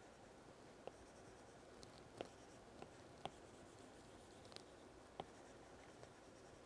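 Faint, scattered ticks of a stylus tip tapping and dragging on a tablet's glass screen while colouring in: about six light clicks over quiet room tone.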